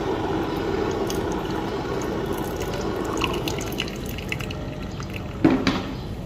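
Hot water poured over a pour-over paper filter to wet it, running and dripping through into the vessel below and slowly tapering off. A single sharp knock about five and a half seconds in.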